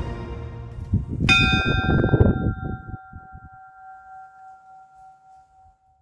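A small bell hung from a wooden cross and rung by a pull rope, struck once about a second in and left to ring out, its tone slowly fading over several seconds. A low rumble runs under the first few seconds.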